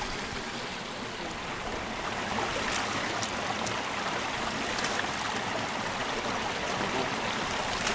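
Shallow mountain stream running steadily over rocks, with a few small splashes as water is scooped up by hand about halfway through.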